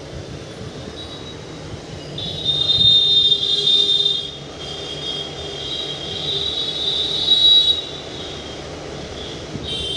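Train wheels squealing against the rails in high, drawn-out screeches, loudest about two to four seconds in and again around seven seconds, over the steady rumble of the moving train.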